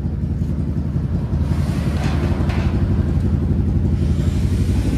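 Steady low rumble of an engine running, with a couple of light knocks about two seconds in.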